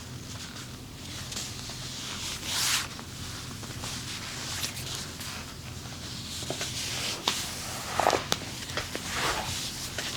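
Hands rubbing and kneading skin in a massage: soft swishing strokes, the strongest about two and a half seconds in, and a few sharp clicks around seven and eight seconds in, over a faint steady low hum.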